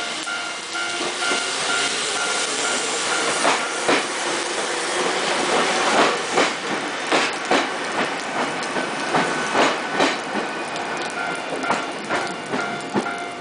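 Ohmi Railway electric train passing through a station platform, its wheels clacking in close pairs over the rail joints as each bogie goes by, over the running noise of the cars. A ringing bell carries on under it, heard plainly at the start and again near the end.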